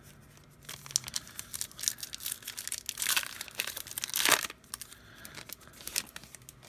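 A baseball card pack wrapper being torn open and crinkled, with dense crackling for about four seconds, loudest about four seconds in, then a few scattered crinkles.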